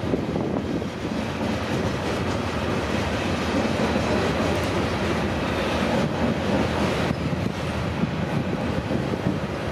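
Loaded coal hopper cars of a freight train rolling by, a steady noise of steel wheels running on the rails.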